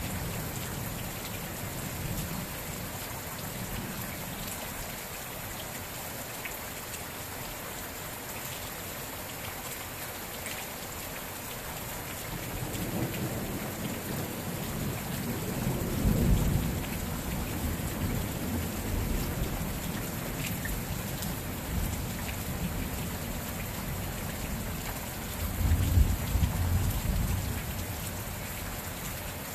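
Steady rain falling, with two low rumbles of thunder: one building from about halfway through, and a second, the loudest, near the end.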